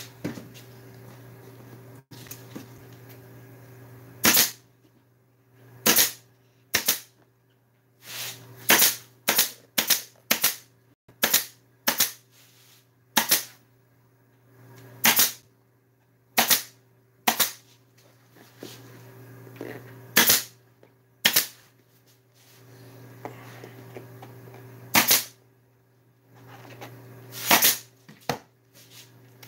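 Pneumatic staple gun firing staples into the edge of a tractor seat cover: about twenty sharp shots at uneven intervals, sometimes several in quick succession, sometimes seconds apart.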